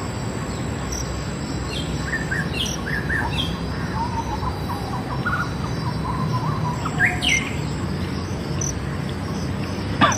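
Wild birds chirping and calling at intervals, with a couple of louder calls near the end, over a steady low background noise and a faint high insect ticking.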